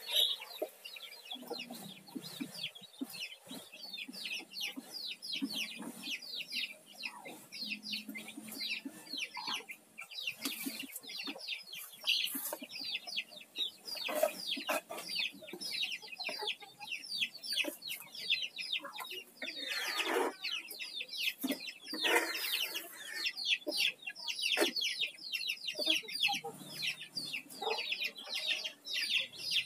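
Chickens calling continuously: a dense run of short, high peeping and clucking calls, several a second, with a few louder calls about two-thirds of the way through.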